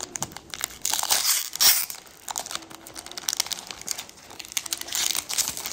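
Foil wrapper of a Pokémon trading-card booster pack crinkling and tearing as it is torn open by hand. The crackles come quick and irregular and are loudest a second or two in.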